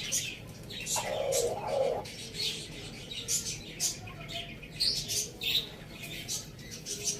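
Small birds chirping in short, high, repeated calls, with one lower, longer call lasting about a second, starting about a second in.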